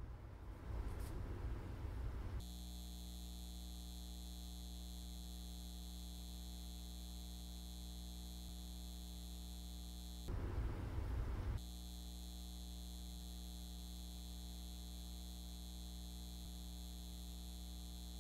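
Steady electrical mains hum with a thin high buzz over it, cutting in about two seconds in. It drops out for about a second past the middle, leaving only a rough room ambience, then carries on unchanged.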